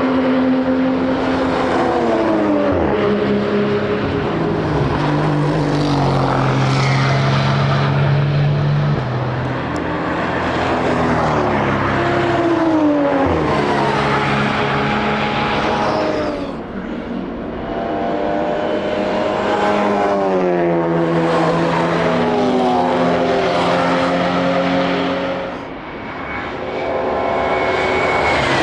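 Several race cars passing one after another with their engines at full song. Their engine notes slide down in pitch as each car goes by, with a couple of brief lulls between passes.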